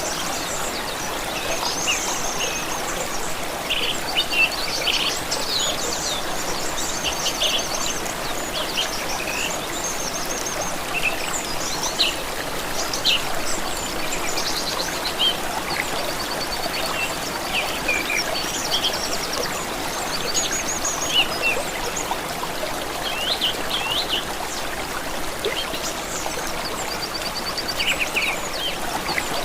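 Several small birds chirping and singing quick trills over the steady rush of running water.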